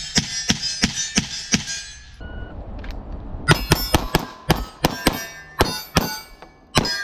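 Semi-automatic pistol fired in two rapid strings, about seven shots, a pause of over a second, then about a dozen more, with steel targets clanging and ringing after the hits.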